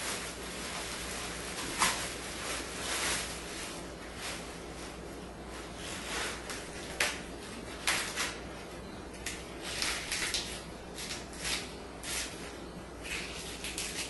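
African grey parrot rummaging in an open kitchen drawer, his beak knocking and rustling against what is inside: irregular sharp clicks and short scrapes, the loudest about two seconds in and again around seven and eight seconds in.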